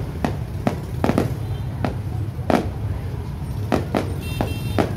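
Fireworks bursting: about nine sharp bangs at uneven intervals over a steady low rumble, with a brief high tone near the end.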